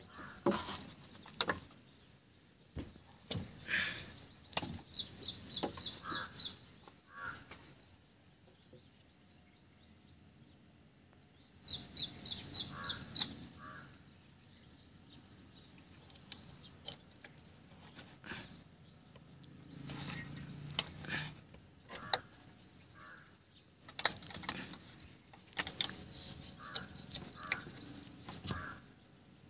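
Birds chirping in short rapid runs, with scattered clicks and knocks in between.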